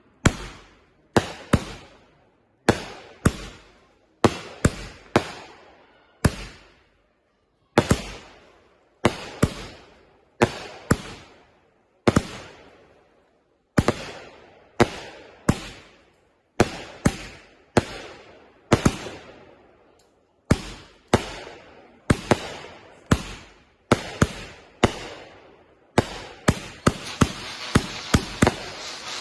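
Consumer fireworks going off: a long run of sharp bangs, one to three at a time with short gaps between. Near the end they turn into a rapid crackling string of bangs over a steady hiss.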